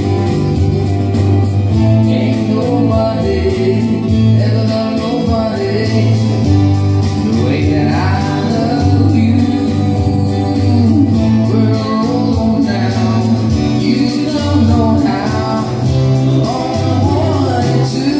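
Live band music played through PA speakers: a singer's voice over amplified keyboard and bass accompaniment, the singing clearest in the second half.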